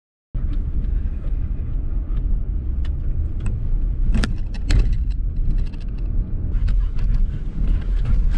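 Car driving on a rough, rutted dirt road: a steady low rumble of tyres and body, with frequent clicks and rattles from stones and bumps. It starts abruptly a moment in.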